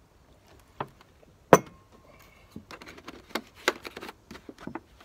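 Light knocks and clinks of a glass measuring jug and a plastic milk bottle being handled and set down on a wooden table. The loudest is one sharp knock about a second and a half in, followed by a string of small clicks.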